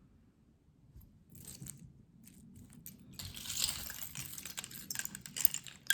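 Costume jewelry being handled and rummaged through: beads, chains and metal pieces clinking and rattling together. It is faint at first and becomes a busy, continuous jingle from about three seconds in.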